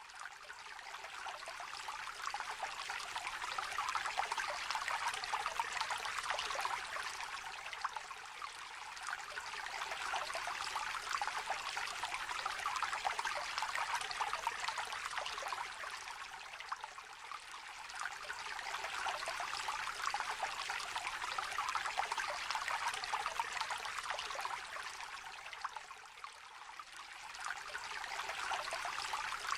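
A small river trickling, its babble of running water swelling and easing every several seconds.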